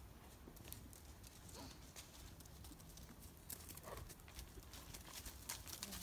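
Hoofbeats of a ridden Thoroughbred gelding moving over soft arena footing. They are a faint, uneven run of dull thuds that grow louder near the end as the horse passes close.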